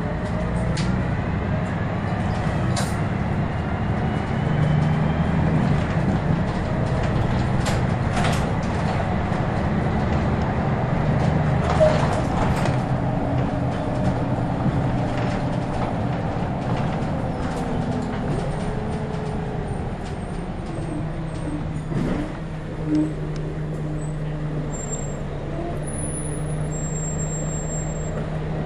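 Scania L113CRL single-deck bus's 11-litre six-cylinder diesel engine running under way, heard from inside the saloon. The engine note rises and falls, with the body and fittings rattling and clicking and a brief knock near the end.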